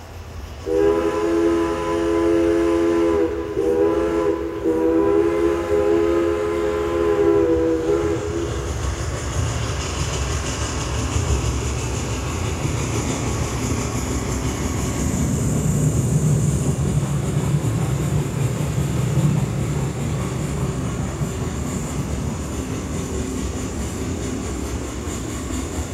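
Recorded steam locomotive sound effect played back in a hall: a chime whistle blows twice, a short blast and then a longer one of about five seconds, and after the whistle stops the train's steady rumble and clatter carries on.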